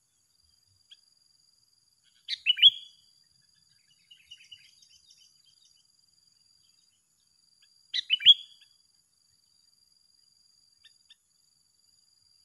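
Sooty-headed bulbul (kutilang) song: two short, loud phrases, about two seconds and eight seconds in, with softer twittering between them. A thin, steady high tone runs underneath.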